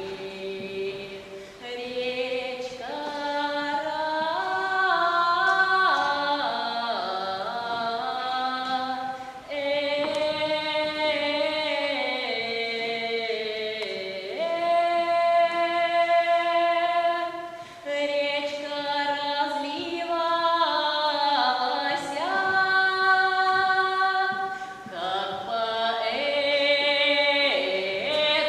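Children's folk ensemble singing a Russian folk song, a girl's voice at the front, in long phrases with short breaks between them.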